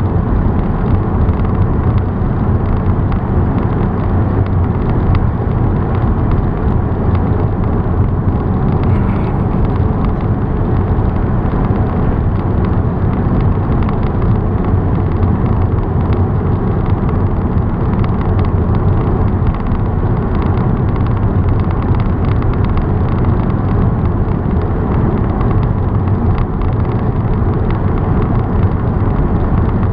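Car driving along the road, a steady, unbroken rumble of road noise.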